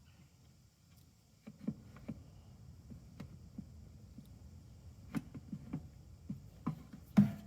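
Irregular soft knocks and low thuds, like handling of objects, with one louder knock near the end.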